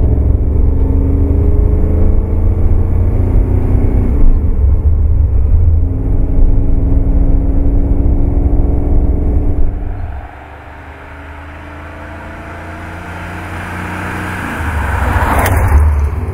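Maserati Khamsin's 4.9-litre V8 under acceleration, heard from outside the car's body: the pitch climbs as the revs rise, with a break about four seconds in at a gear change. About ten seconds in the engine drops away sharply, and a quieter rumble then builds up to a brief loud rush near the end.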